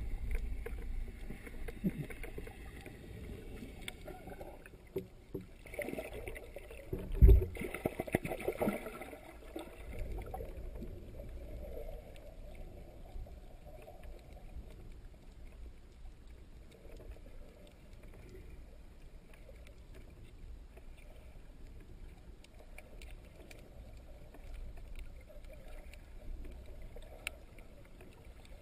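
Muffled underwater noise heard from inside a sealed GoPro dive housing: a low rumble of moving water with scattered clicks and knocks, and one loud thump about seven seconds in.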